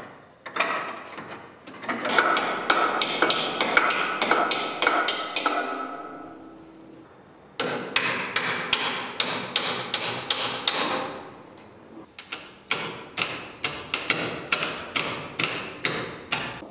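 Hammer blows on metal fittings among the bell wheels and frame, in quick runs of several strikes a second with a short metallic ring after each. The runs come in three main spells with brief pauses between.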